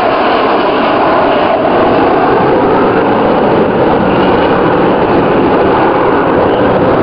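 Jet engine noise from two military jets flying past in formation: a loud, steady rush of sound whose pitch slowly falls early on as they pass.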